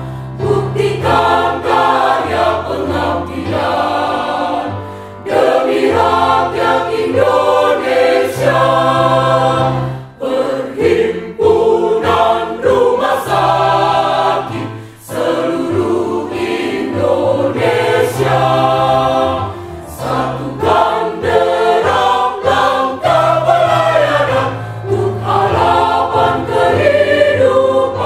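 Mixed choir of women's and men's voices singing in parts, phrase after phrase, with brief breaks between phrases about ten and fifteen seconds in.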